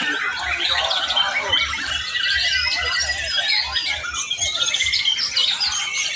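Several white-rumped shamas (murai batu) singing at once, a dense overlapping chorus of quick whistles, trills and chatter.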